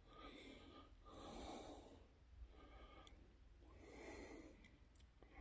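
Faint, slow breathing close to the microphone: several soft breaths in and out, each just under a second long.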